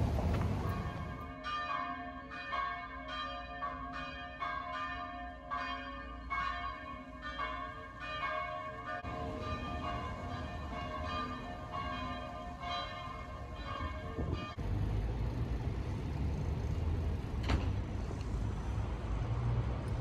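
Church bells ringing, a quick run of strikes with tones that linger between them, roughly two strikes a second. About fourteen and a half seconds in, the bells cut off suddenly and give way to a steady low hum of street traffic.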